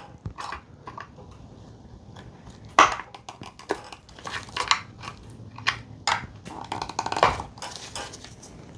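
Scattered clicks, knocks and scrapes of the timing belt being worked off the pulleys of an NA Mazda Miata engine, with the sharpest knocks about three seconds in and again past seven seconds.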